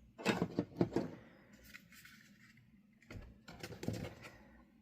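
Light clicks, knocks and rustles of gear being set by hand into a hard plastic gun case: a cluster in the first second, a pause, then a second cluster near the end.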